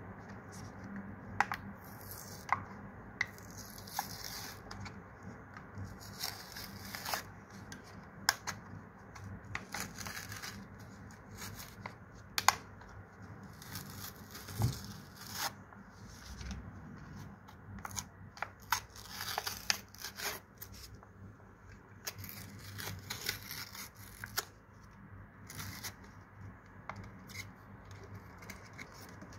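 Cardboard backing of a toy-car blister pack being torn open by hand in several bouts, with crinkling of the clear plastic blister and scattered sharp clicks.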